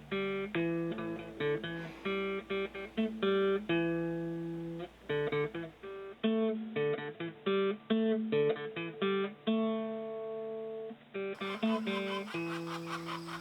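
Background music: plucked acoustic guitar picking a melody with short, separate notes.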